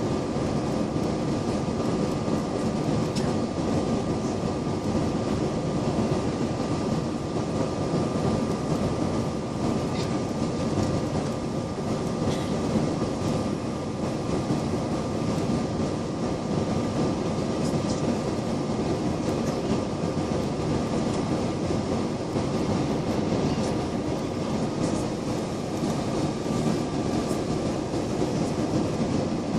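Steady aircraft cabin noise: the engines' continuous drone with a few steady whining tones running through it.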